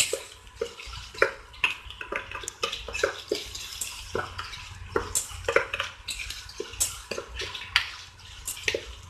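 Wooden spatula stirring and scraping roasting toor dal and grated coconut around a nonstick kadai: irregular clicks and scrapes, a few each second, as the dry lentils rattle against the pan.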